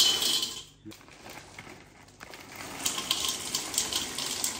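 Frozen blueberries pouring from a plastic zip-lock bag into a stainless steel mixing bowl: a dense rattle of small hard clicks that starts about three seconds in, after a short loud rustle at the start.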